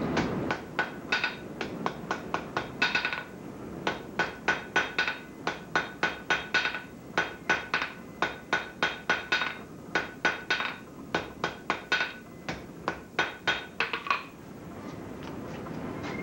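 Hand hammer striking hot iron on a steel anvil in runs of quick blows, about four a second with short pauses, each blow ringing bright: forge welding the iron. The blows stop about fourteen seconds in, and a steady rushing noise follows.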